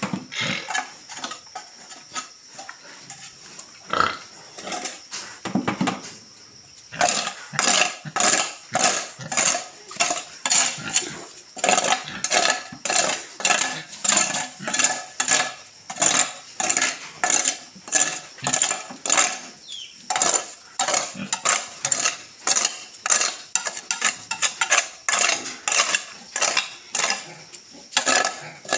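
Rhythmic scraping strokes on a pig-pen floor, about two a second, starting about seven seconds in, with scattered knocks and clatter before them.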